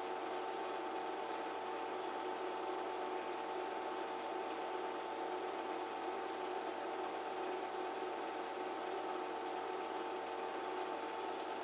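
Film projector running with a steady whir and hum over a hiss.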